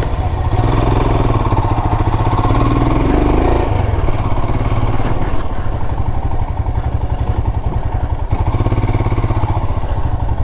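Royal Enfield Himalayan's single-cylinder engine running just after start-up, with quick even firing pulses, revving up briefly twice, about a second in and near the end.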